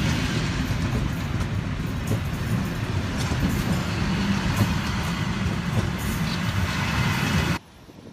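Train running along the rails: a steady loud rumble and rattle that cuts off abruptly about seven and a half seconds in.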